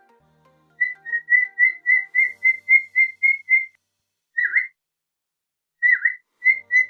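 A parrot whistling: a quick run of about eleven short, clear notes on one pitch, roughly four a second, then after a pause two notes that swoop downward, and two more short notes near the end.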